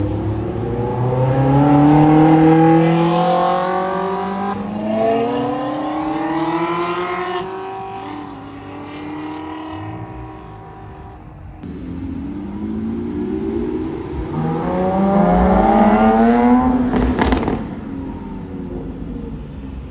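Supercar engine at full throttle, its note climbing steadily as it accelerates, heard in two separate runs. The second run ends in a sharp crack, after which the sound drops away.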